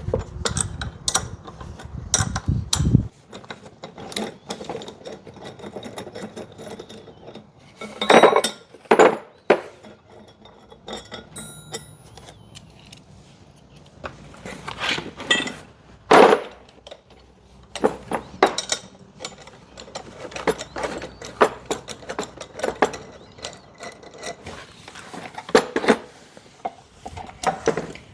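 Hand tools undoing bolts on an awning bracket: irregular ratcheting clicks and sharp metal clinks and knocks. A low rumble sits under the first few seconds.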